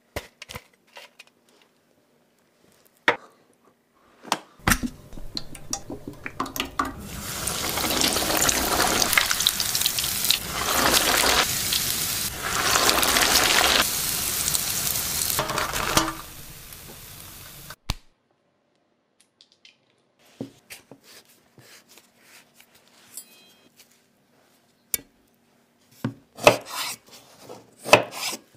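A panko-breaded cutlet frying in hot oil. A loud, steady sizzle starts about five seconds in and runs for roughly eleven seconds, then drops and cuts off. Before it come soft handling sounds of the cutlet being dipped and coated. Near the end a knife cuts into an avocado on a wooden cutting board with a few sharp taps.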